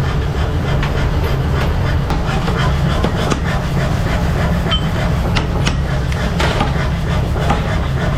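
Workshop machinery running with a steady low hum, with irregular clicks and knocks over it.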